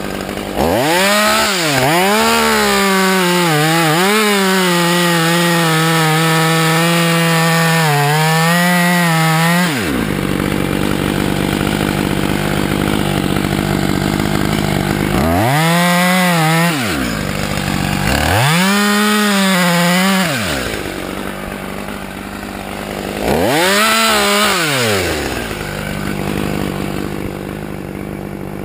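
Husqvarna T540XP top-handle two-stroke chainsaw revved up for about nine seconds, its pitch wavering under load as it cuts into the log, then dropping back to idle. Three shorter bursts of throttle follow, each rising and falling back to a steady idle.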